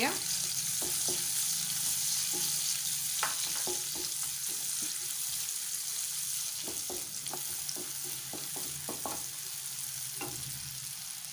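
Sliced onions sizzling steadily as they fry in hot oil in a kadai, with a wooden spatula stirring them and knocking and scraping against the pan now and then.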